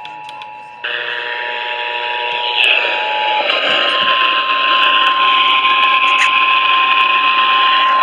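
Small portable AM radio on the AM band, putting out loud static hiss with steady whistle tones underneath. The hiss jumps up sharply about a second in. Two close tones fade out a little before halfway, and a single slightly higher tone then holds steady.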